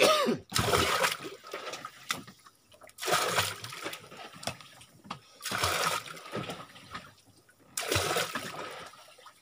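Water splashing and sloshing in four surges a couple of seconds apart.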